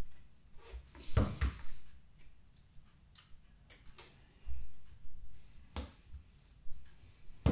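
Someone eating dog food with a metal spoon from a plastic bowl: irregular spoon clicks and scrapes against the bowl along with chewing, loudest about a second in.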